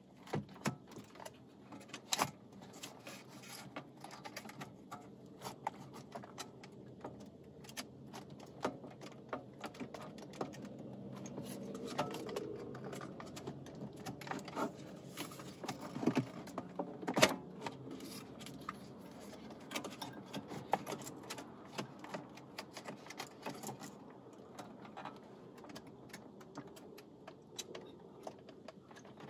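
Scattered clicks, knocks and light rattles as the Lexus CT's factory radio unit is worked loose and pulled forward out of the dashboard, with a sharper click about two seconds in and the loudest one a little past the middle.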